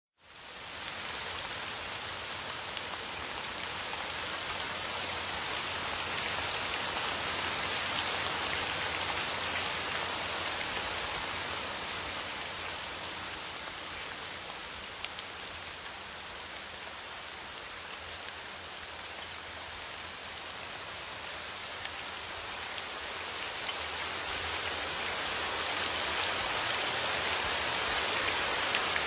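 Rain falling steadily as a recording, an even hiss dotted with small drop hits. It fades in over the first second, eases a little in the middle and grows louder again near the end.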